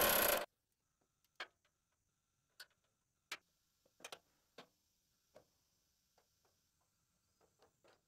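A loud burst of noise cuts off about half a second in, then about a dozen sharp clicks and taps at irregular intervals from hand tools working on car body panels, with a faint steady high whine behind them.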